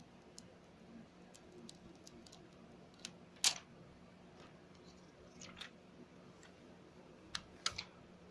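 Scattered small clicks and short scrapes of hands handling an iPhone's parts and small tools, the loudest about three and a half seconds in and a few more near the end.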